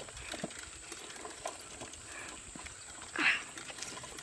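Bicycle rattling and ticking with scattered small clicks as it rides over a bumpy grass and dirt path, with a brief louder whoosh about three seconds in.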